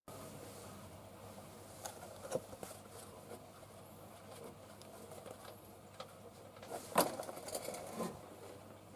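A gloved hand works an automatic transmission's drain plug, giving a few sharp clicks and knocks. Then the red transmission fluid drains in a thin stream into a plastic drain pan with a faint trickle.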